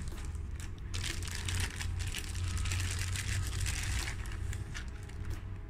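Clear plastic packing bag crinkling as it is pulled off a boxed electronic terminal: a dense run of crackles that thins out near the end.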